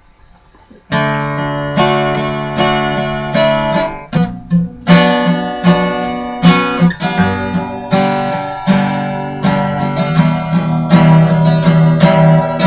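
Steel-string acoustic guitar strummed in chords, the song's instrumental intro with no singing yet. The strumming starts about a second in.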